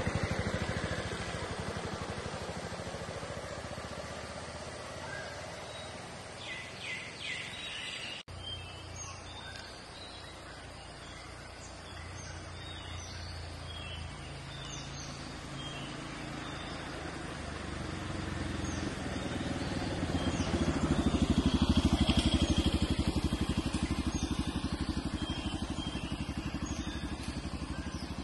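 Roadside ambience: a motor vehicle's engine running, growing louder from about two-thirds of the way through and easing off near the end, with small birds chirping.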